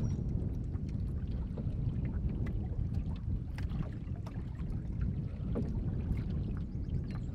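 An open canoe moving on a river: water washing along the hull with a steady low rumble, and scattered small splashes and knocks.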